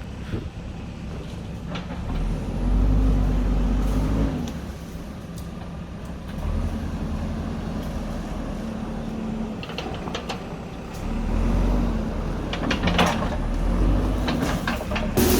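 JCB backhoe loader's diesel engine running, its revs rising and falling three times as it works under load. A few sharp knocks come in the second half, and a louder, rougher noise starts right at the end.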